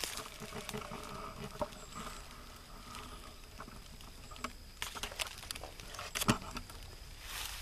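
Sharp twig snaps and light rustling in dry swamp brush, the loudest snap near the end. Faint, drawn-out baying of rabbit hounds in the distance runs through the first few seconds.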